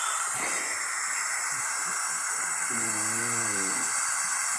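Steady hiss of a body camera's recording noise, with a faint voice speaking briefly about three seconds in.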